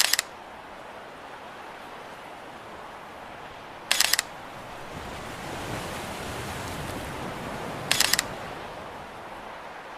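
Camera shutter clicks, each a quick cluster of sharp clicks, once every four seconds, over a steady wash of sea surf that swells for a few seconds in the middle.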